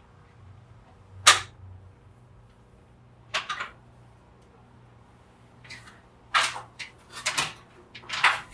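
A cutting tool snapping shut on a cord: one sharp, loud snip about a second in, then a few more clicks and scrapes as the cord is worked at, with a cluster of quick snips near the end.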